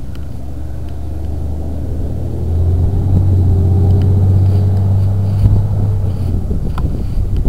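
Low, steady engine rumble of a motor vehicle, swelling louder about two and a half seconds in.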